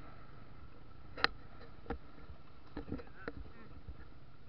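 Low steady rumble of a habal-habal motorcycle under way. Several sharp clicks and knocks come over it, the loudest about a second in.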